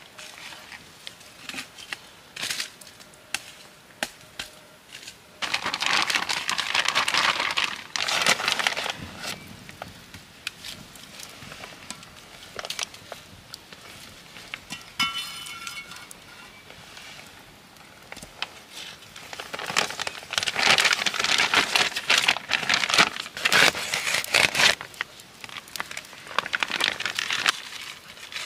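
Wood fire crackling and popping in a stone fireplace. Three louder spells of rustling and crumpling come from logs and dry fuel being handled, the longest from about twenty to twenty-five seconds in.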